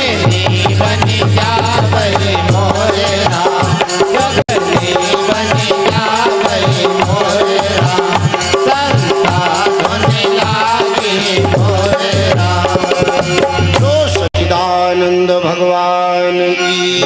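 Devotional Hindi bhajan: a man singing with tabla accompaniment. After a brief dropout about fourteen seconds in, steady held notes take over.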